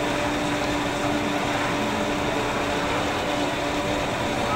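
Steady machine hum of a juice bar's equipment, a constant low tone over an even hiss.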